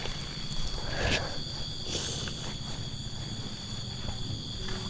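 Insects chirring steadily in the background, with a low rumble and a couple of faint knocks about one and two seconds in.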